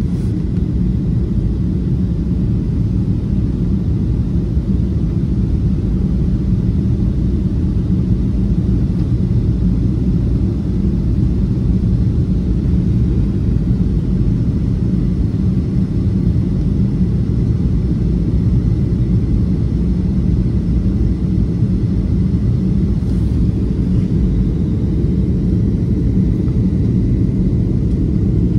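Steady cabin roar inside a Boeing 737-500 on approach, heard from a window seat: engine and airflow noise of its CFM56-3 turbofans, deep and even, with a faint steady high tone above it.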